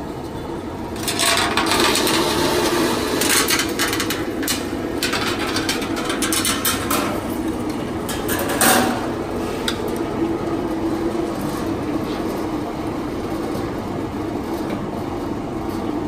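Steelmaster TDF 1.6 16-station roll former running with a steady hum, as a galvanised steel strip is fed through its clip-lock forming rolls. From about a second in, the strip rattles and scrapes through the rolls with many sharp clicks. One loud clank comes just past the middle, and then the sound settles back to the steady run of the machine.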